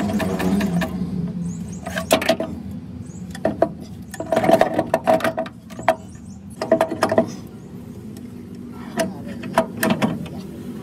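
Metal tools clinking and knocking on tractor parts in several short clusters, the metal ringing briefly, over a steady low hum.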